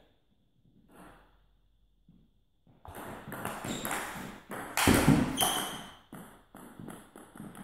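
Table tennis rally: the celluloid ball knocked back and forth off rackets and table, mixed with the players' quick footwork on the hall floor. It starts about three seconds in, is loudest about five seconds in, and thins to a few scattered knocks near the end.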